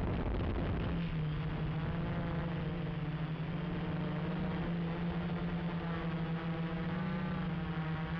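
Gaui 330X quadcopter's electric motors and propellers running in flight: a steady buzzing hum whose overtones drift slowly up and down as the throttle changes.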